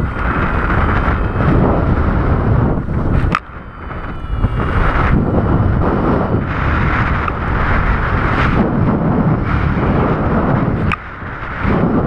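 Strong wind buffeting the microphone of a paraglider pilot's camera in flight: a loud, gusting rush that drops away suddenly for a moment about three and a half seconds in and again about eleven seconds in.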